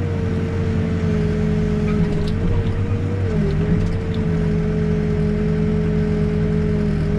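New Holland B95 backhoe's diesel engine running steadily under digging load, with a steady whine above it that shifts in pitch slightly a little past three seconds in as the hydraulics work.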